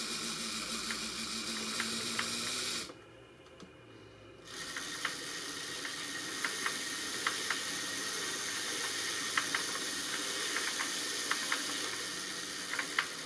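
RC crawler drivetrain, electric motors and gearbox, running with the wheels spinning freely: a steady whine and hiss with sharp clicks recurring over it. It stops about three seconds in and starts again about a second and a half later. The clicks fit the regular klack that the owner traced to a faulty inner gear in the gearbox.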